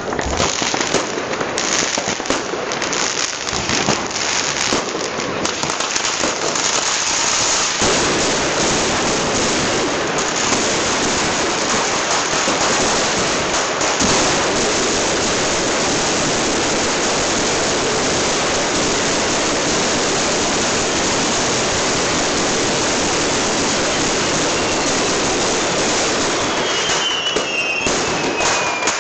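A long firecracker chain (Böllerkette) going off, the bangs coming so fast that after about eight seconds they merge into one continuous crackling rattle, which thins out again near the end.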